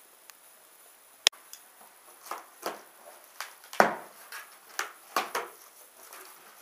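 Flaps of a cardboard shipping box being pulled open and folded back by hand: a sharp click, then a string of short scraping, rustling sounds.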